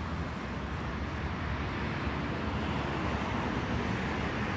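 Distant jet engine noise from a Boeing 737-800's CFM56 turbofans on final approach: a steady, even rumble that grows slightly louder.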